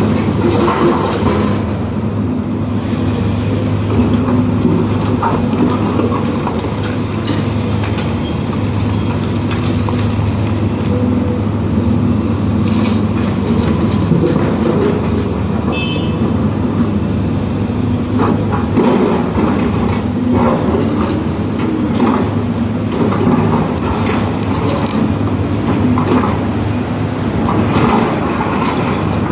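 Hidromek 310 LC excavator's diesel engine running steadily under load while digging and loading earth, with scattered clanks and scrapes from the bucket and soil.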